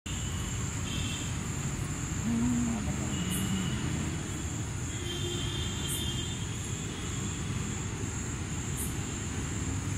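Night insects keep up a steady high-pitched trill, with a short higher chirp every few seconds, over a continuous low background rumble.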